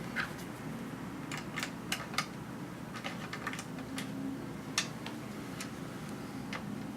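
Scattered light clicks and taps as a small circuit board is handled and fitted into a plastic computer case, over a steady low hum.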